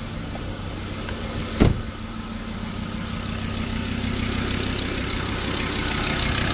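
Car engine idling rough with a misfire, traced to cylinder number 3, whose injector is under test. A single sharp click comes about a second and a half in.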